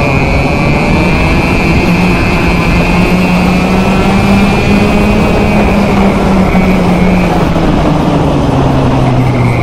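Two-stroke racing kart engine heard onboard at speed, holding a high, steady note, then dropping in pitch about three-quarters of the way through as the driver comes off the throttle.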